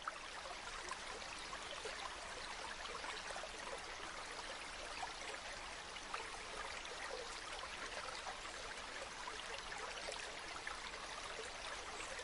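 Running water of a stream: a steady rush with small splashes and gurgles throughout.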